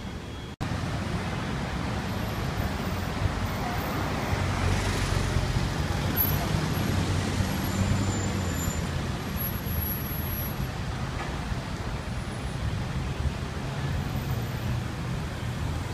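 Steady city street traffic: cars passing and idling, with a low engine rumble that swells for a few seconds near the middle.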